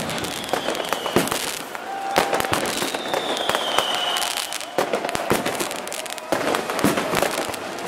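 Fireworks and firecrackers going off all around: a dense run of bangs and pops, with a high whistle sliding down in pitch about three seconds in.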